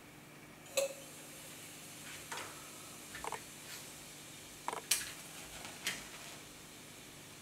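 A few small knocks and clicks of laboratory glassware and a matchbox being handled, the first with a brief glassy ring, then a match struck about five seconds in.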